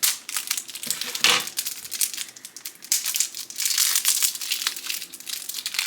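Plastic packaging crinkling and rustling as it is handled and torn open, with many small irregular clicks and a louder crackly stretch in the middle.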